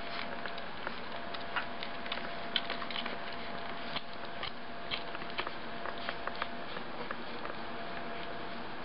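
Ten-day-old standard poodle puppies suckling at their mother: irregular soft clicks and smacks from their mouths over a steady hiss and a faint hum.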